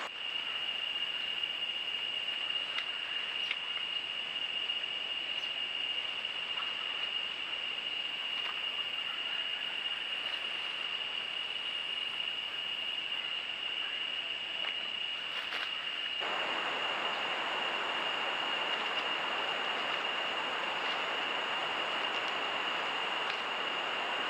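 Trail-camera recording of rainforest ambience: a steady high-pitched whine over constant hiss, with a few faint ticks; the hiss grows louder about two-thirds of the way through.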